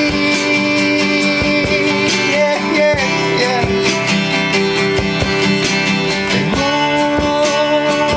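Live one-man-band music: an acoustic guitar strummed in a steady rhythm with percussion hits, under long held melody notes that slide up into pitch.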